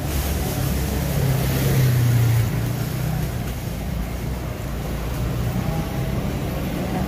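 Street traffic noise, with a nearby motor vehicle's engine running low and loudest between about one and two and a half seconds in.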